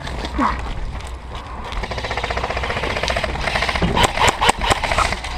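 Airsoft guns firing full-auto, a fast even rattle that starts about two seconds in, with a few sharper cracks near the end.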